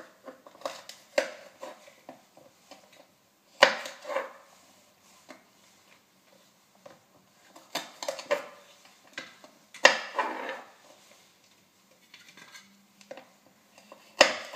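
Kitchen knife trimming the ends off green beans on a wooden cutting board: irregular sharp knocks as the blade strikes the board, spaced from under a second to a few seconds apart.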